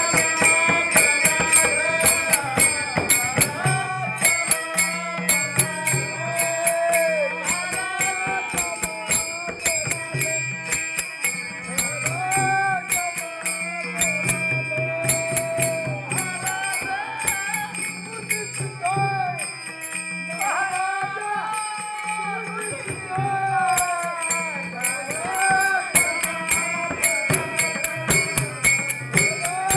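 An elderly singer's voice singing a devotional bhajan melody, accompanied by fast, continuous jingling and rattling hand percussion with a steady metallic ring, over a low sustained accompanying tone.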